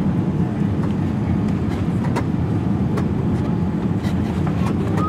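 Jet airliner cabin noise during landing: a steady low rumble of engines and airflow, with a few light knocks and rattles.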